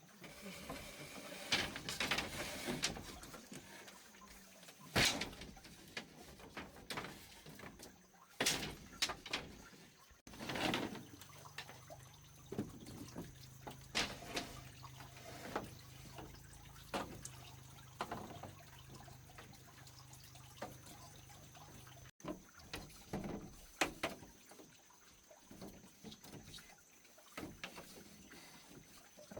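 Small water splashes and drips with scattered light knocks and clicks, irregular and sudden.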